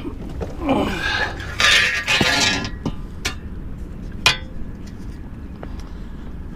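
A freshly landed red drum flopping on a boat: a burst of clattering about two seconds in, then scattered sharp clinks and knocks against hard surfaces, the loudest a little after four seconds.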